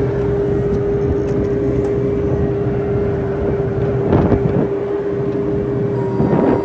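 Bobcat E26 mini excavator's Kubota diesel running at raised throttle, a steady low drone with a constant whine over it. It swells briefly twice, about four and six seconds in.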